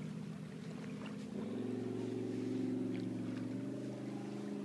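Jet boat engine running, a steady drone that swells about a second and a half in.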